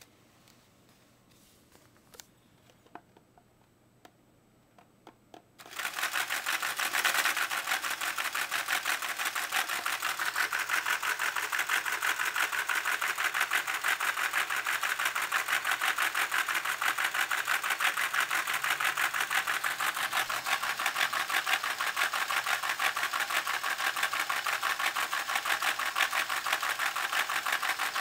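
Plastic LEGO Technic model V-twin engine, turned by an electric motor, clattering rapidly as its pistons and crank run. After a few faint clicks, it starts suddenly about six seconds in and keeps up a fast, even clicking rattle.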